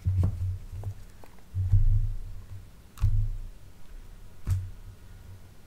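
A tarot deck being handled on a tabletop: several soft thuds, the loudest about two seconds in, and a few light taps and clicks of cards.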